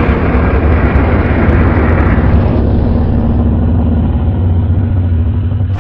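A loud, steady low rumble sound effect. Its upper range drops away about halfway through, and it cuts off abruptly at the end.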